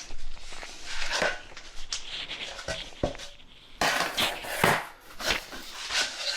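Vinyl planks knocking and sliding against each other as one is lined up as a straightedge, with scratchy strokes of a line being drawn along its edge.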